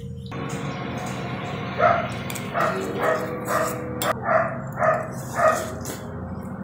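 A dog barking, a run of about eight barks roughly half a second apart, the loudest sound here, over the clicks and slurps of someone eating noodles.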